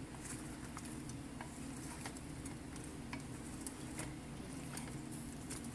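A spatula stirring shrimp and corn cobs in a frying pan: scattered light scrapes and taps against the pan over a faint sizzle, with a steady low hum underneath.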